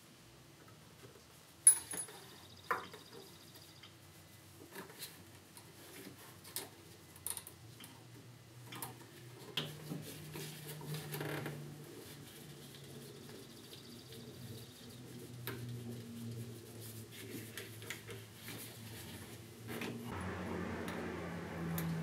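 Sparse small metallic clicks and taps of gloved hands fitting clips and linkage on a golf cart carburetor, with one sharper click about two seconds in. A faint low hum comes in about halfway.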